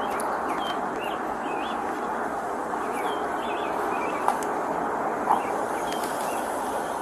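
Birds chirping in short repeated calls over a steady rushing background noise, with two short clicks about four and five seconds in.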